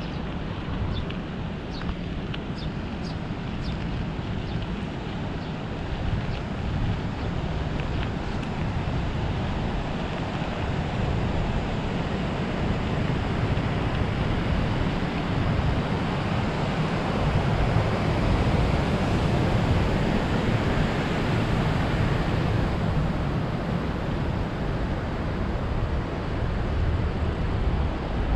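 Wind buffeting a head-mounted GoPro's microphone while cycling: a steady, low-heavy rushing noise that swells somewhat in the middle. A few faint, short, high chirps sound in the first few seconds.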